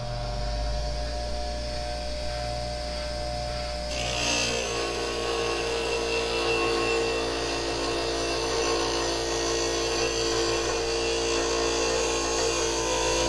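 Bench grinder with a CBN wheel running with a steady hum; about four seconds in, a steel turning gouge held in a sharpening jig is pressed to the wheel and a steady grinding sound of steel on the wheel sits over the motor. This is the gouge being sharpened.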